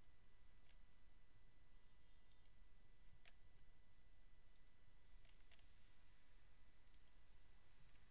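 Faint computer mouse clicks, some in quick pairs, every second or two, over a low hiss and a thin steady electrical whine.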